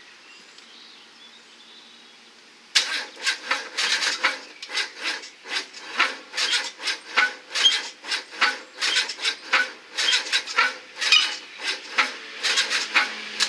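Starter motor cranking a 1.2-litre Renault Clio engine that has been run dry of oil and coolant. It turns over slowly in even strokes of about three a second for some ten seconds, starting about three seconds in, and never fires: the engine is wrecked and will not start.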